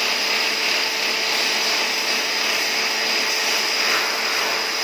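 Electric drill boring a hole overhead while a shop vacuum, its hose held at the bit to catch the dust, runs alongside; the two make one steady, continuous mechanical noise.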